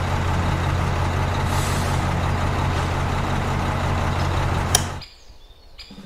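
Small electric motor of a toy concrete mixer running steadily as it turns the drum, a low hum with a hiss over it. It stops with a click about five seconds in.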